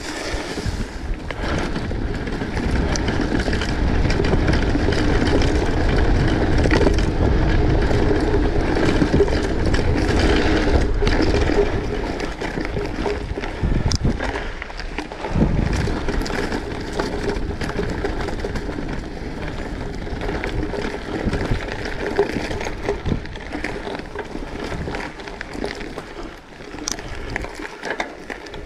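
Continuous rumble and crunch of tyres rolling over a rough track, mixed with wind buffeting the microphone, with scattered small clicks and rattles.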